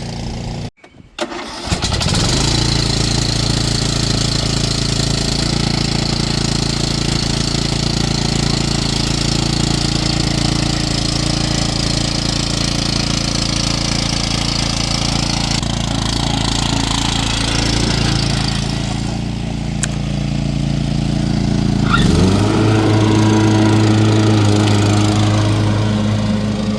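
Petrol lawn mower engine starting up about two seconds in, then running steadily. Its note changes about 22 seconds in.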